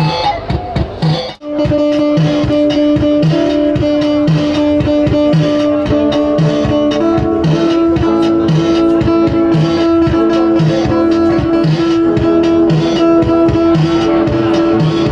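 Music: guitar over a steady beat of about two pulses a second. It cuts out briefly about a second and a half in, then carries on.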